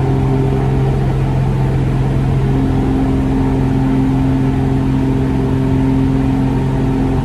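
Bearhawk bushplane's piston engine and propeller running steadily, heard inside the cockpit, with a higher tone in the drone strengthening about two and a half seconds in.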